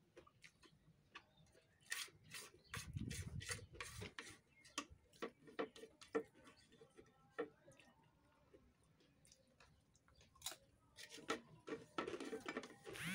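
Faint eating sounds: irregular small clicks and smacks of chewing, with fingers picking and scraping the last rice on a ceramic plate.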